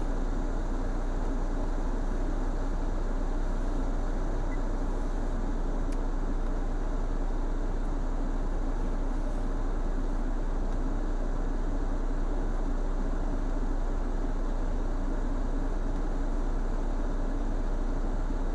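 Steady low hum inside a stationary car's cabin, the car idling, picked up by the dashcam's built-in microphone; it does not change in level or pitch.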